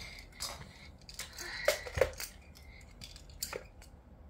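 Toy trains and plastic track pieces clicking and knocking together as they are handled, with scattered sharp clacks and the loudest pair close together about two seconds in.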